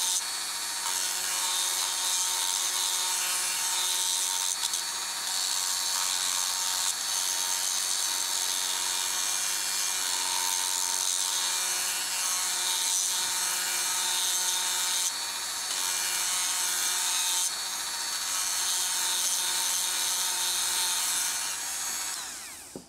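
Handheld rotary tool with a small sanding drum running at steady high speed and sanding a wooden piece: a constant motor whine, with the sanding hiss swelling and easing as the drum is pressed on and lifted off the wood. Near the end the tool is switched off and its whine falls away as it spins down.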